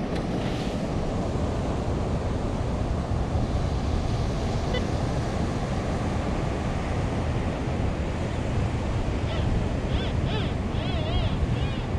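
Steady noise of ocean surf with wind. Near the end come a few faint, warbling high tones.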